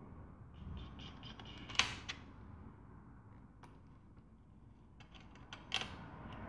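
Small clicks and ticks of a precision screwdriver and its screws against a MacBook Air's aluminium bottom case as the case screws are driven back in, with two sharper clicks about four seconds apart.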